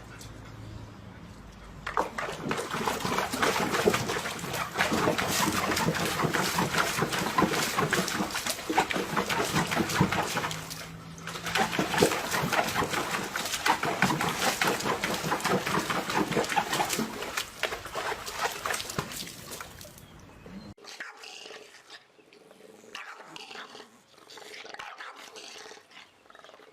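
A dog vocalizing, loud and dense for most of the stretch with a brief break in the middle, then much quieter near the end.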